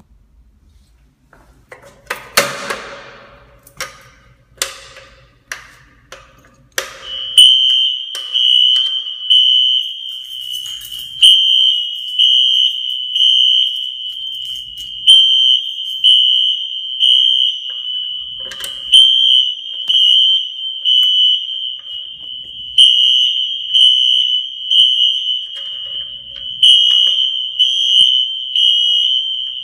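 Wheelock fire alarm horn sounding a loud, steady high-pitched tone that comes on about seven seconds in, after a handful of sharp knocks, and swells in level about every two seconds. The fire alarm system is in alarm during an inspection test.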